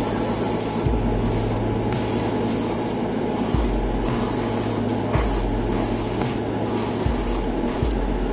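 Airbrush spraying paint in a steady hiss that breaks off briefly several times as the trigger is let go, over the steady hum of a spray booth's extractor fan.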